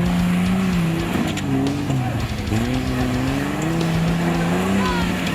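4x4 off-road vehicle's engine revving up and down under load, its pitch rising and falling several times.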